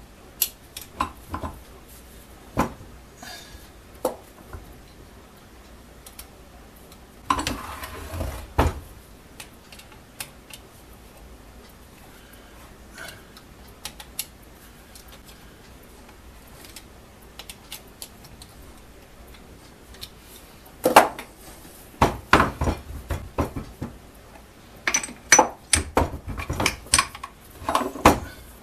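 Metal hand tools and small parts clinking and knocking against the rotary hammer's metal housing and the metal workbench during reassembly. The sharp clicks are scattered, with a busy cluster about eight seconds in and many more over the last seven seconds.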